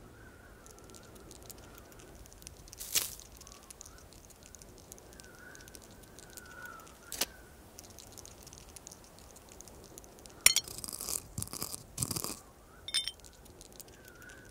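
Faint whistling wind with a couple of sharp clicks, then a cluster of crunching, scraping sounds from about ten seconds in: packed snow and a dry twig being worked onto a snowman.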